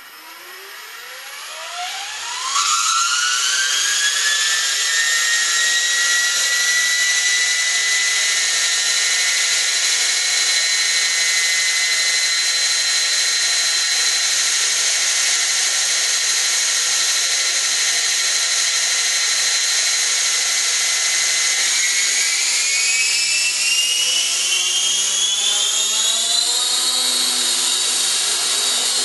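Align T-REX 500 electric RC helicopter on its first run-up after building: the motor and gear whine rises over the first couple of seconds as the rotor spools up, then holds steady. About 22 seconds in the whine climbs higher again as the head speed is raised, and settles at the higher pitch.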